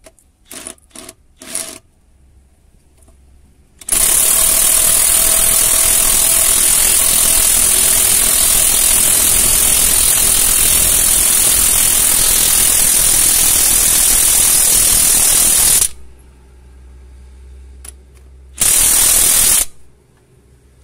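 DeWalt DCF897 3/4-inch brushless cordless impact wrench hammering on a wheel-hub bolt: three short trigger blips about a second in, then a long run of about twelve seconds, and one more short burst near the end.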